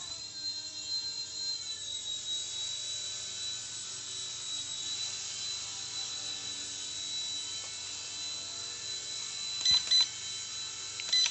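XK K127 micro RC helicopter's electric motors and rotors running at a steady high whine as it hovers after a one-key automatic takeoff, the pitch easing down a little about two seconds in. A few short beeps sound near the end.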